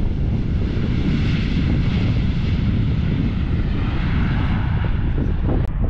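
Jet airliner engines heard from a distance, a broad rushing noise that swells and eases, over wind buffeting the microphone.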